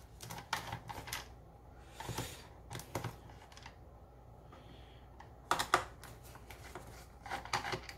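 Phillips screwdriver working screws out of a portable speaker's plastic housing: scattered light clicks and ticks from the driver tip and screws, with a louder cluster of clicks about halfway through and again near the end.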